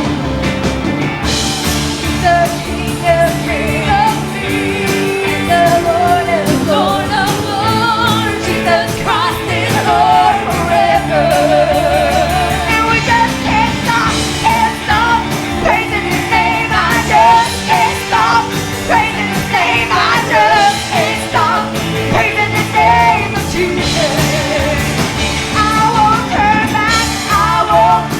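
Live gospel praise music: a band playing steady chords with singing voices, the voices wavering with vibrato.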